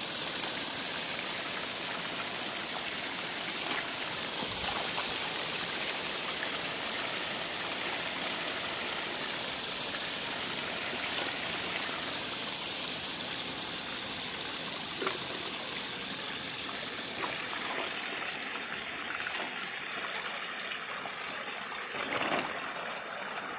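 A steady rush of water gushing into a shallow tarp-lined pond, splashing and frothing on the surface. It eases a little in the second half, with a few small knocks near the end.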